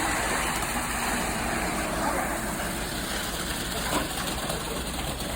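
Concrete mixer truck's engine running steadily with a low hum during the pour.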